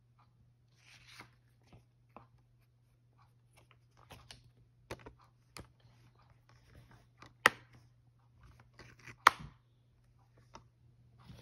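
A plastic Blu-ray case and its discs being handled: scattered light clicks and short rustles, with two sharp plastic clicks in the second half, just under two seconds apart.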